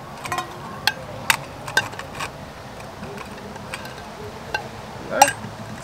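Clinks and knocks of the Trangia Mini's metal pot, pan and parts being handled and set down, with a few light taps in the first half and a louder knock near the end.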